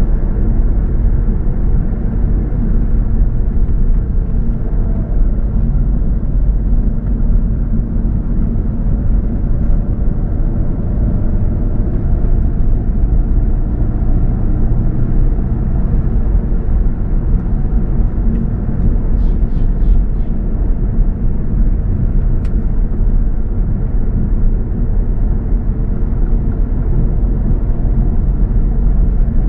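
Steady low rumble of a car driving: road and motor noise heavy in the bass, with a few faint ticks a little past the middle.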